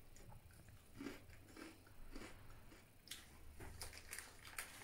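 Faint crunching and chewing of crisp lemon-and-salt snack rings (Totis Donitas) in someone's mouth, a few scattered crunches, mostly in the second half.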